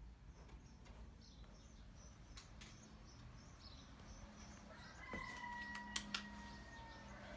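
Faint bird chirps in the background. About five seconds in, a thin steady whistle-like tone sounds for about two seconds, with two sharp clicks near its middle.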